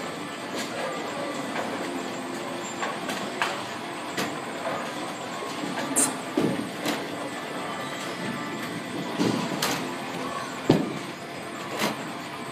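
Bowling alley sound: a steady rumble of lane and ball-return machinery, with scattered knocks and clacks of balls, the loudest about ten and a half seconds in.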